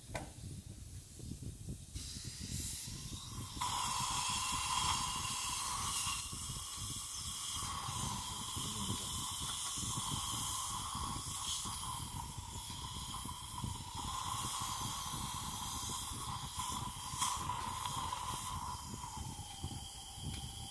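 Dental suction tip hissing with a slight whistle as it draws blood and pus from an incised gum abscess; the hiss jumps louder about three and a half seconds in and stays steady.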